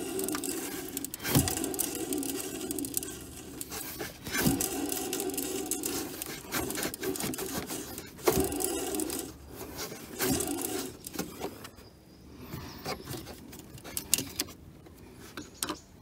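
Renault Kangoo 1.5 dCi alternator pulley spun by hand several times with the belt off, each spin crackling and grating as it coasts down. This is the sign of a broken alternator bearing.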